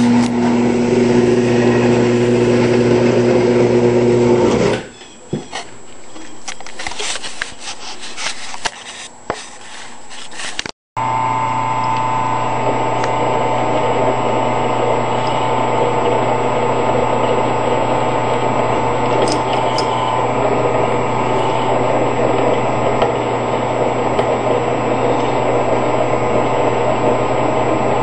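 Converted 10 x 18 wood lathe running with a steady motor hum. About five seconds in, the hum cuts off and a few seconds of clicks and knocks follow. After a short break the lathe runs steadily again.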